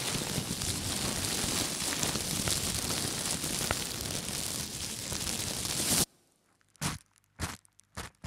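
A large sheet of white parachute-like fabric rustling and billowing in a dense, steady hiss that cuts off suddenly about six seconds in. After that, a handful of white fabric squeezed right against a microphone gives separate sharp crinkles and crunches.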